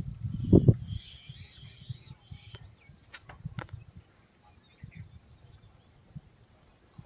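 Small birds chirping over outdoor rural background noise. A burst of low rumble comes in the first second, and two sharp cracks come about three and a half seconds in while a palm tuber is being peeled by hand.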